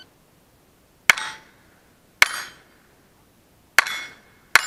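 Four .22 LR shots from a Browning Buck Mark pistol at uneven intervals, roughly a second apart. Each shot is followed by the brief metallic ring of a hit steel target plate.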